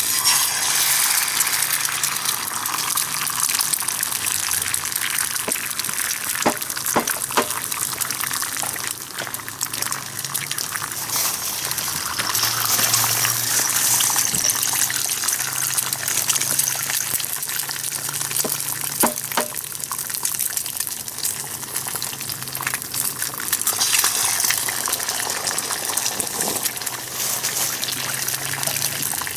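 Wood fire burning strongly, a steady rushing hiss with scattered sharp pops and crackles.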